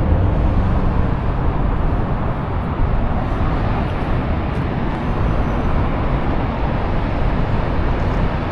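Steady, loud roar of Willamette Falls' rushing water blended with the rumble of road traffic, an even noise with no breaks.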